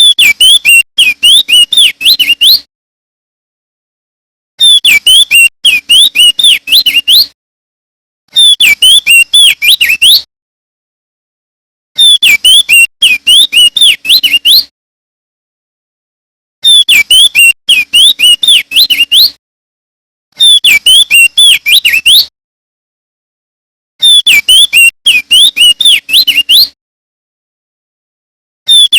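Male crested white-eye (opior jambul) singing loud repeated phrases of about two seconds each. Each phrase is a quick run of short whistled notes sliding up and down, and the phrases are separated by brief silent gaps, seven of them in all.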